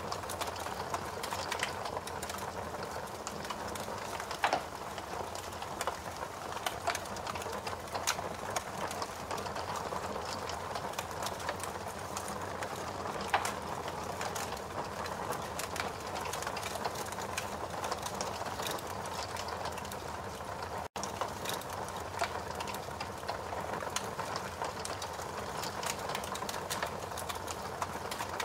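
Torch flame burning with a steady rushing noise and frequent small crackles, with a few sharper pops. The sound cuts out for an instant about two-thirds of the way through.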